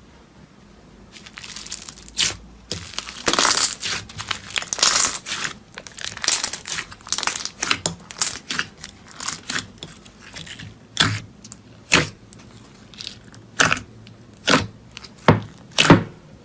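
Slime being squeezed and stretched by hand, making crackling, tearing sounds with a dense run of snaps. Toward the end these give way to single sharp pops about once a second, like air pockets bursting as the slime is pressed.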